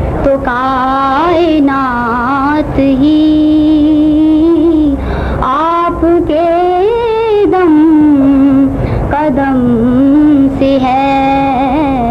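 A young girl's solo voice singing a naat, an Urdu devotional poem in praise of the Prophet, in long held notes that bend and waver, with short pauses for breath.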